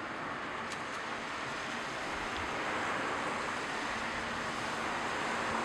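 Steady, even hiss of outdoor night-time ambience, with a faint low hum that comes and goes. No thunder is heard.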